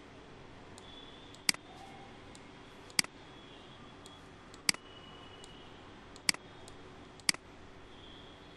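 Computer mouse button clicking five times, about a second or more apart, each sharp click followed by a quick softer tick. A faint steady hum lies underneath.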